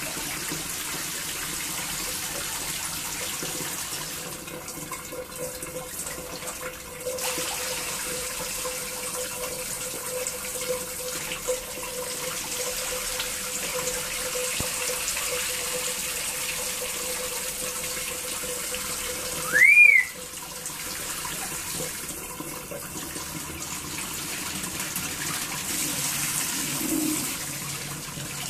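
Water spraying steadily over a wet pet bird and its cage floor, with one short, loud whistle that rises and falls about two-thirds of the way through.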